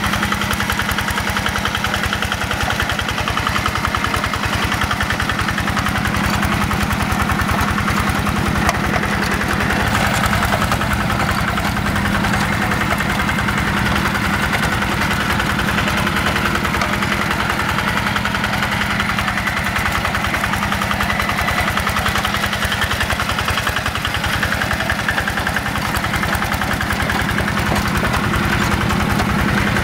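The Yanmar single-cylinder diesel engine of a Quick G1000 two-wheel hand tractor running steadily and evenly under load as it drags a levelling board through paddy mud.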